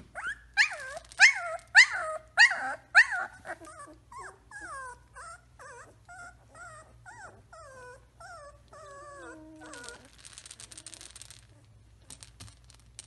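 Three-week-old Samoyed puppy whining and yelping in a series of high, rising-and-falling cries, loud and about two a second at first, then softer falling whines. Near the end there is a second or so of hissing noise.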